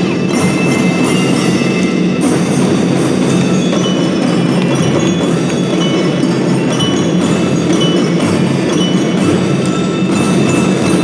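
Children's drum band playing a piece: bright metal mallet bells such as a glockenspiel carry the melody over drums and other percussion.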